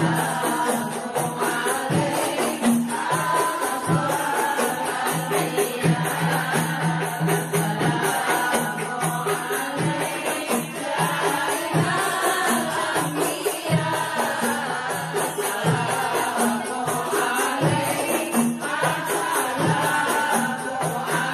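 A group of voices chanting a devotional song, with tambourine-type percussion striking along.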